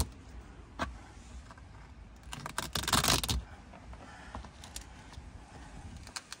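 Self-adhesive Velcro discs being handled on a hard plastic cargo liner, their backing covers peeled off: scattered light clicks and crackles, with a brief louder burst of crackling about three seconds in.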